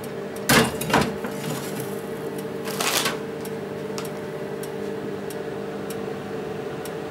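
Steady hum of a preheated combination microwave-convection oven running. A glass baking dish knocks twice against the oven's rack about half a second and one second in, with a shorter clatter around three seconds in.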